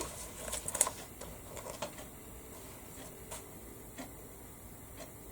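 A few faint, scattered ticks and taps over quiet room tone, a second or more apart.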